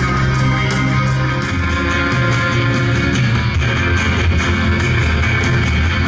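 Live rock band playing, with electric guitar and bass prominent. Partway through, the music cuts to a different song.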